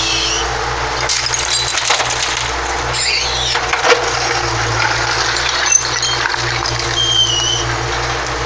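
Mini excavator and site dumper engines running steadily while broken masonry rubble clatters and cracks as the excavator bucket tips it into the dumper. Sharp knocks about four and six seconds in, and short high squeals near three seconds and again near seven.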